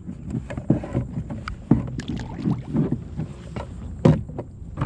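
Water splashing and sloshing at the side of a plastic kayak, with irregular knocks on the hull, as a caught jack crevalle is handled over the side on a fish grip. Wind rumbles on the microphone.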